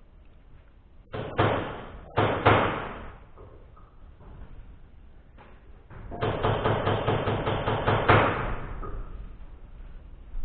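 Knocks and clunks of hand work on the tractor's engine: two pairs of sharp knocks, then a rapid run of knocks, about five a second, lasting some two seconds.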